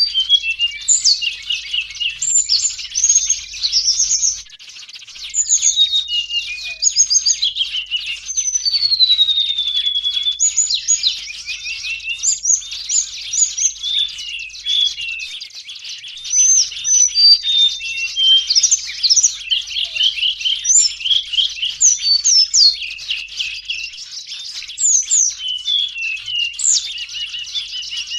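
A busy, noisy chorus of small birds, flowerpeckers among them, giving rapid high chips, twitters and short whistled glides that overlap without pause: the excited flock chatter used as a lure call for catching small birds.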